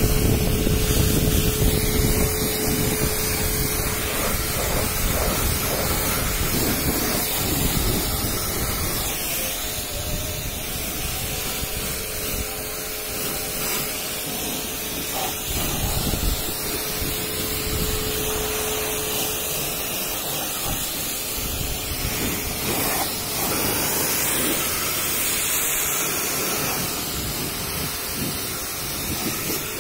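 A jet of water spraying hard onto a car's side body, wheel and footboard, a steady hissing splash. A steady motor hum runs under it and fades out about two-thirds of the way through.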